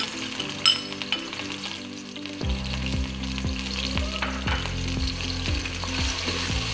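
Chopped onions sizzling in hot oil in an aluminium pot and being stirred with a steel ladle, with a sharp clink of the ladle against the pot less than a second in. Low backing music with a steady beat comes in about two and a half seconds in.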